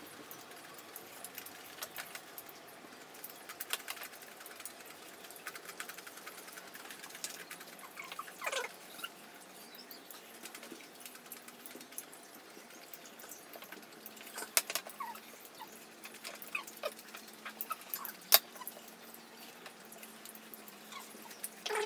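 Eating sounds: quiet chewing and mouth noises, with scattered clicks of spoons against ceramic bowls and plates. The sharpest click comes about eighteen seconds in.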